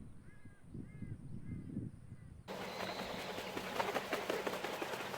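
Low, repeated calls of black-faced spoonbills. About halfway through, an abrupt cut to a louder, dense crackling noise with a steady low hum.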